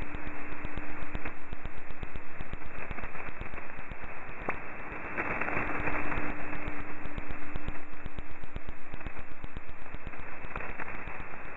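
Shortwave radio static from a receiver tuned to 6887 kHz upper sideband: a steady hiss thick with crackles and pops. A faint steady low tone, the station's carrier, fades in and out.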